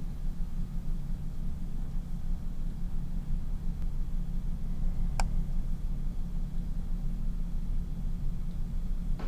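Steady low hum with a single sharp mouse click about five seconds in.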